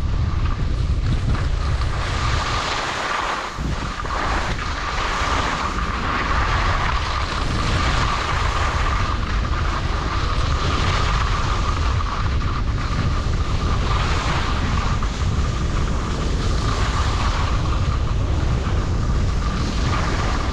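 Wind buffeting the microphone while skiing downhill, with the hiss of skis sliding on snow swelling and fading. A steady high whistle-like tone runs underneath, and the low rumble drops out briefly about three seconds in.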